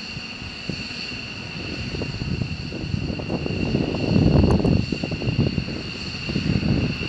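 Twin jet engines of a taxiing F-15 fighter, with a steady high-pitched whine over a rough low rumble that swells about halfway through.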